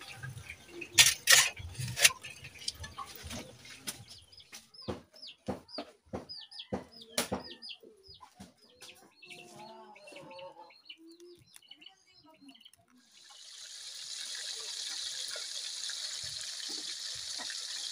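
Sharp knocks and clicks with chickens clucking for the first dozen seconds. Then, about 13 s in, fish start sizzling in hot oil in a wok, a steady hiss that lasts to the end.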